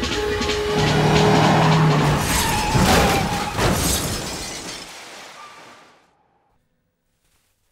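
Film soundtrack of dramatic music mixed with car effects: tyres skidding and held tones, then a few sharp crashing hits in the middle. It fades out to silence over the last couple of seconds.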